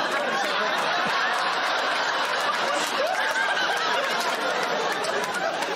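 Studio audience laughing steadily, with panellists laughing along.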